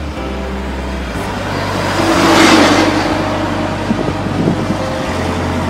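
A road vehicle passing close by, its sound swelling to a peak about halfway through and then fading, over a steady low rumble of traffic.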